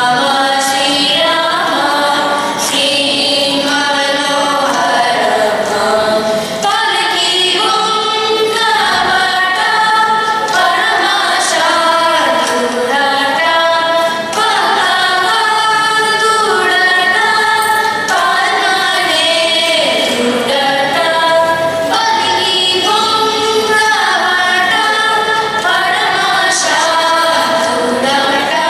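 A group of children's and young women's voices singing a Carnatic devotional song in unison, with long sustained phrases that glide up and down in pitch.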